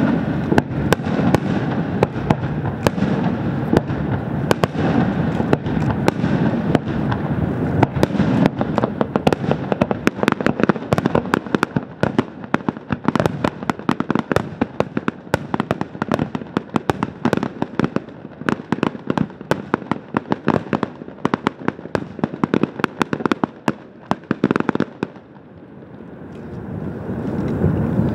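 Fireworks display: shells bursting with dense, rapid crackling and popping that thins out and fades about 24 seconds in. Near the end a low rumble builds up again.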